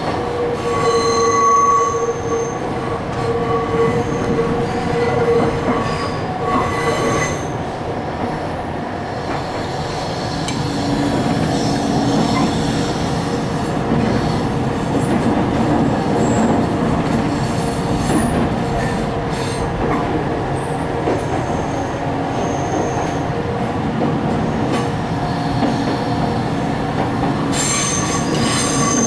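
Railway carriage running on its track, heard from inside: a steady rumble of wheels on rail, with high-pitched wheel squeal from the start to about seven seconds in and again near the end.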